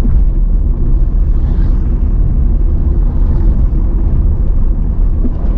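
A car driving at highway speed: steady, loud low rumble of road and engine noise.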